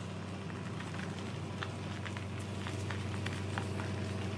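Footsteps crunching on a gravel driveway, a scatter of short sharp crunches, over a steady low hum.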